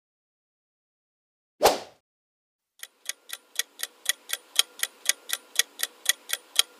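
Ticking-clock countdown sound effect, about four even ticks a second, starting about three seconds in. It is preceded by one short transition sound effect about a second and a half in.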